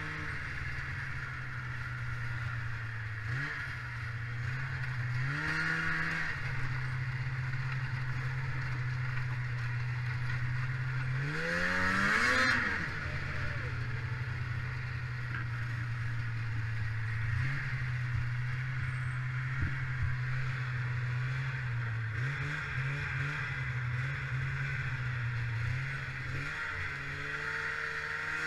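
1995 Polaris Indy 500 snowmobile's two-stroke engine running steadily while riding. Its pitch climbs and falls back briefly about twelve seconds in, the loudest moment, with shorter rises around three to six seconds in and a few small dips later.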